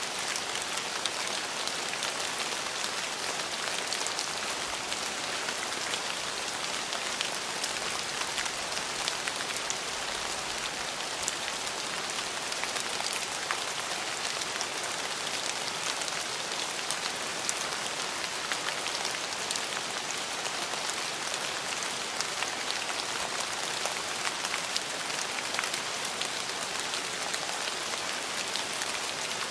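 Steady rain falling on a surface, a constant hiss dotted with the ticks of individual drops.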